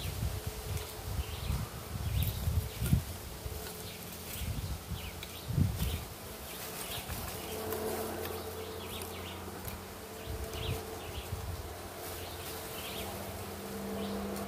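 A flying insect buzzing, a steady hum that grows stronger about seven seconds in, with scattered light clinks of charcoal lumps being set by hand in a clay coal pot.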